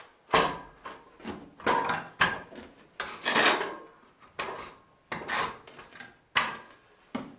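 Irregular wooden knocks and short scrapes, about one every half second to a second, with a longer scraping stretch midway: timber being worked and shifted by hand while the old ceiling beams are fixed.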